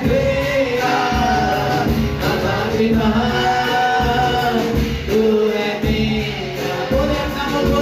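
Hindi Christian worship song: a male worship leader and a choir of young women sing together through microphones over amplified accompaniment.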